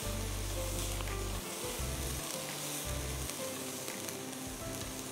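Chopped onions sizzling steadily as they fry in hot oil in a nonstick pan, stirred with a spatula, being browned.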